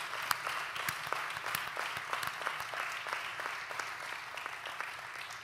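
An audience applauding, the clapping slowly fading toward the end.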